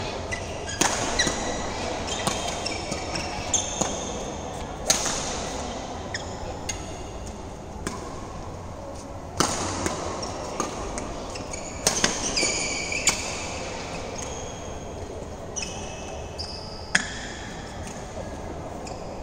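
Badminton rackets striking a shuttlecock during a doubles rally, sharp cracks every second or few, with short high squeaks of sneakers on the court floor between the shots.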